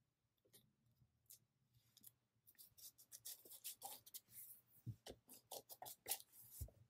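Faint handling sounds of plastic page protectors in a ring-bound album as fingers press a sticker down and smooth the pages: a few scattered clicks, then denser crinkling and rubbing from about two and a half seconds in, with a couple of soft thumps.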